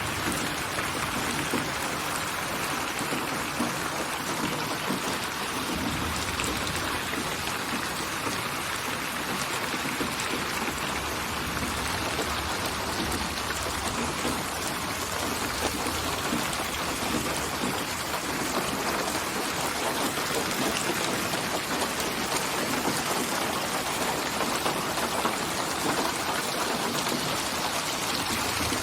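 Steady rainfall pattering on a surface: an even wash of rain noise with small drop sounds throughout.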